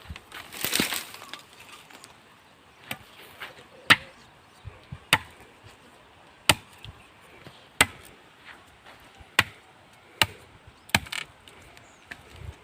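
A blade chopping into a moringa (drumstick tree) stem, with a sharp strike about every one to one and a half seconds, around ten in all. There is a brief noisy rush about a second in.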